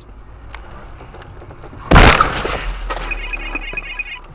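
A vehicle collision: a sudden loud crash with glass and debris shattering about two seconds in, then a rapid high beeping for about a second.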